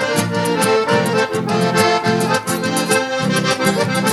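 Accordion playing an instrumental passage between verses of a traditional gaúcho song, over a steady rhythmic backing.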